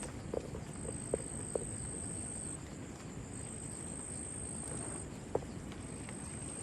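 An insect trilling in a thin, high, steady note, repeated three times in bursts of nearly two seconds with short gaps, over a steady hiss. A few soft clicks, such as footsteps, fall in the first half and once near the end.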